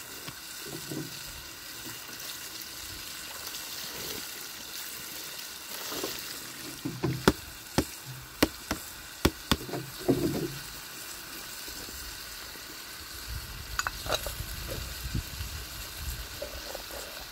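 Food sizzling in a pan over an open wood fire, a steady hiss, with a run of sharp clicks and knocks about seven to ten seconds in.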